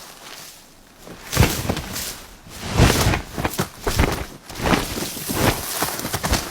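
A run of irregular scuffling and scraping noises, several a second, from about a second and a half in.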